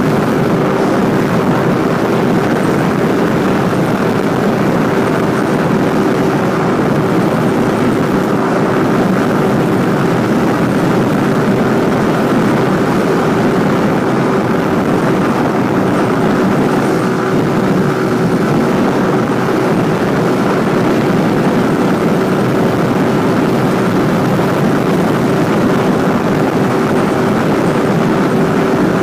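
Motorcycle engine running at a steady cruise, a constant drone under a rushing noise of wind on the head-mounted camera's microphone.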